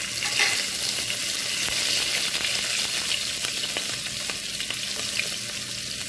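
Green chillies and curry leaves, with whole spices, sizzling and crackling in hot oil in a pan: a steady frying hiss with scattered pops.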